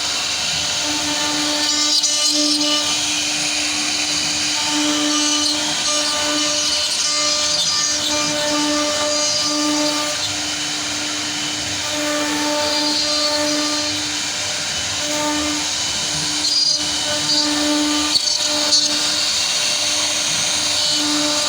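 CNC machine running and cutting: a steady spindle hum with overtones over a continuous cutting hiss, swelling and easing slightly as it works.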